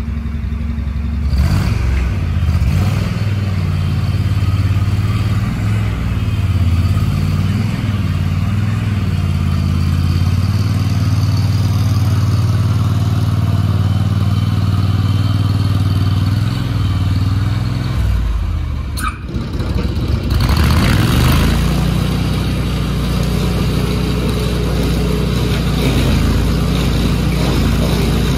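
Bandit ZT1844 stump grinder's engine running steadily at high throttle while the machine is worked across the stump area. About two-thirds of the way through the engine dips briefly, then a couple of seconds of harsher clattering noise follow before it settles back to a steady run.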